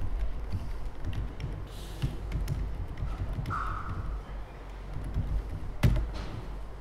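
Typing on a laptop keyboard: scattered light key taps, with one sharper, louder knock near the end, over a steady low hum.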